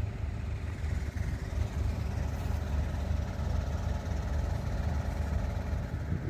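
Diesel tractor engines idling, a steady low rumble.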